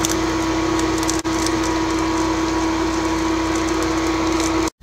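Spanish potato tortilla frying in oil in a wok on an induction cooktop: a steady sizzle under a steady hum. There is a brief dip about a second in, and the sound cuts off abruptly just before the end.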